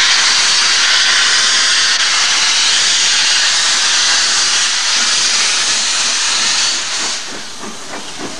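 LNER A3 Pacific 4472 Flying Scotsman moving slowly with its cylinder drain cocks open, blowing steam in a loud steady hiss. The hiss drops away about seven seconds in, leaving fainter knocks.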